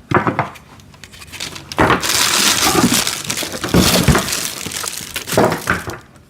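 Plastic packaging crinkling and rustling as parts are handled and pulled out of a cardboard box, mostly continuous from about two seconds in.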